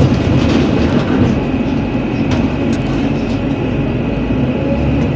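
Interior noise of a NefAZ-5299 city bus on the move: a steady rumble of engine and road, with a few short rattles about two to three seconds in.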